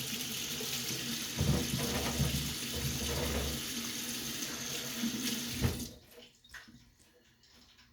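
Kitchen tap running into a sink, with a few low knocks of handling, then shut off abruptly about six seconds in.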